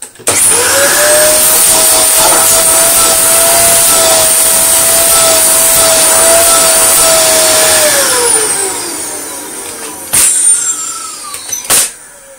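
Dyson DC24 upright vacuum cleaner switched on: its motor spins up to a steady whine over loud rushing air and runs for about seven seconds, then is switched off and winds down with a falling whine. Two sharp knocks follow near the end. The machine is being run to check its suction, which has a slight leak that the owner puts down to a dicky changeover valve.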